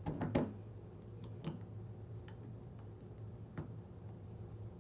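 A few light clicks and taps of the motor's parts being handled and worked into mesh with the gears, spaced well apart, over a faint steady low hum.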